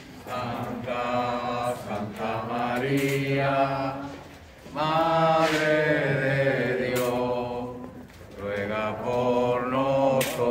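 A group of voices chanting the rosary prayers together in unison, in three long phrases of a few seconds each with short breaks between.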